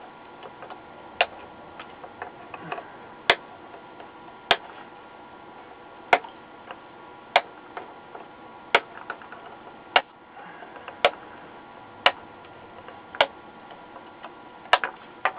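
Diagonal cutters snipping off the excess leads of freshly soldered capacitors on a circuit board: a sharp click with each cut, about a dozen cuts at uneven intervals of a second or so.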